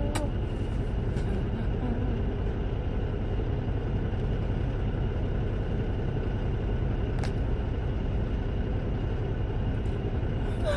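Steady low rumble of a semi-truck's idling engine heard inside its cab, with a few faint clicks.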